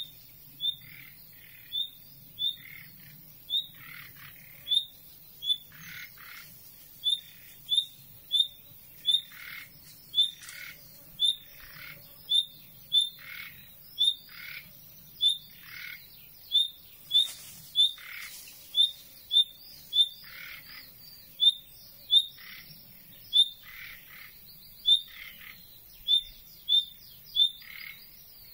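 Common nightingale giving a repeated call rather than its usual song: a short, sharp high note with a lower, harsher part, repeated a little more than once a second, on and on.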